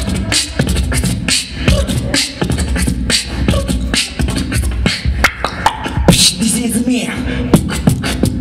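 Solo beatboxing into a handheld microphone: a steady deep bass line under quick, sharp snare and hi-hat clicks, with a short held hummed note about six seconds in.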